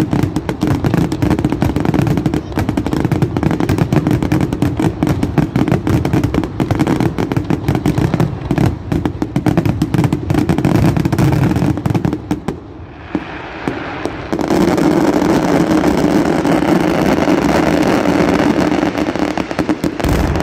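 Fireworks display: a rapid, near-continuous volley of bangs and crackles for about twelve seconds, a brief lull, then a steady dense rush of noise until near the end.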